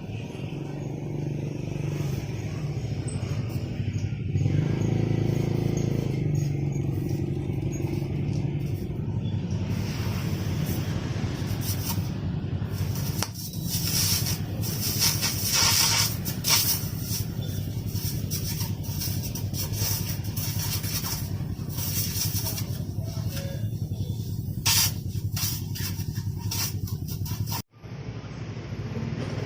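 Small motorcycle engine running through an original Honda GL exhaust reworked into a 'kleper' muffler, the throaty exhaust sound the mod is made for. It revs up briefly about four seconds in. From about ten seconds in the sound turns harsher and noisier, with many sharp pops, and it cuts out for a moment near the end.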